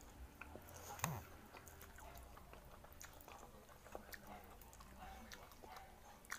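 Faint chewing and slurping of spicy instant noodles eaten with chopsticks. Many small scattered clicks and mouth noises, with one sharper click about a second in.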